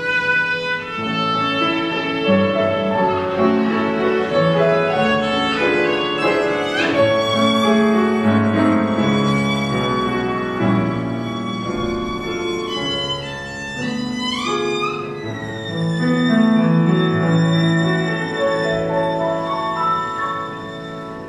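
Solo violin playing a slow serenade with piano accompaniment, sustained singing notes with two quick upward slides, the music softening in its closing bars near the end.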